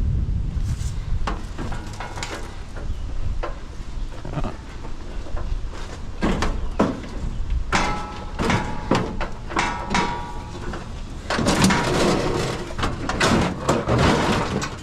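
Scrap metal being handled and shifted: irregular clanks, knocks and scraping of sheet-metal barbecue parts and other junk, with a short metallic ring about eight seconds in and a busier stretch of clatter near the end.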